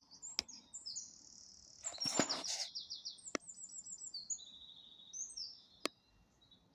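Small songbirds singing high-pitched trills and chirps, series of quick repeated notes that step down in pitch. Three sharp clicks and a brief noisy rustle about two seconds in.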